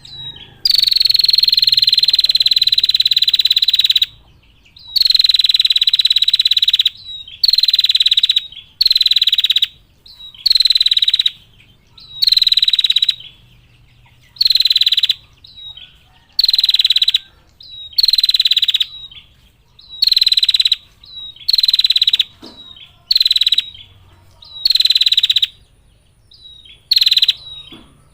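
Female prinia (prenjak) giving its 'ngetir' call: fast, dry rattling trills repeated about a dozen times. The first trill lasts about three and a half seconds, and the later ones run for one to two seconds each with short pauses between.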